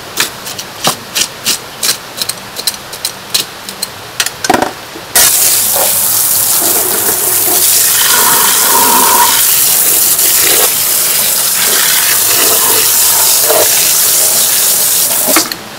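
Scales being scraped off a grass carp in a stainless-steel sink, with quick scraping strokes two or three a second. About five seconds in, water from a hose starts gushing loudly onto the fish and runs steadily, cutting off abruptly near the end.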